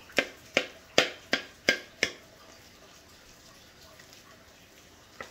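A metal spoon chopping and mashing boiled carrots and potatoes in a wooden bowl. It strikes down six times in quick succession near the start, each a sharp knock, about two to three a second.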